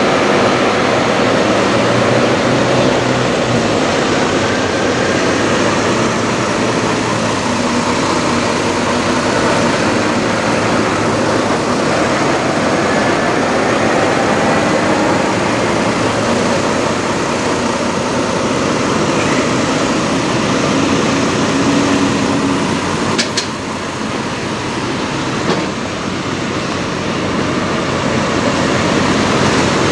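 Heavy diesel semi-truck engine idling steadily and loudly up close, with a sharp click about two-thirds of the way through.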